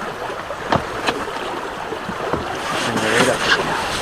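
Steady wash of river water and wind around an open boat, with a few light knocks.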